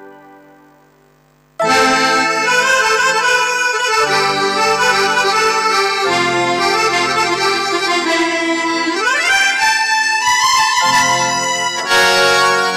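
Roland XP-30 synthesizer played with an accordion-style patch, a melody over chords. A previous tone fades away first, the playing starts suddenly about one and a half seconds in, and a quick upward pitch glide comes about nine seconds in.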